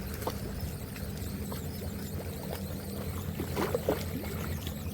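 A steady low engine hum with the sound of water, and a few short squeaks about three and a half seconds in.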